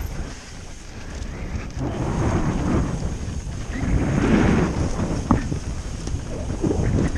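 Wind buffeting the camera microphone with the rumble and rattle of mountain-bike tyres on a dirt trail at speed, swelling and easing, with a short sharp knock about five seconds in.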